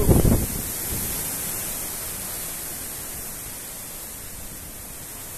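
Hurricane wind blowing steadily as a loud, even hiss. It is loudest in a short burst at the very start, then eases off slightly.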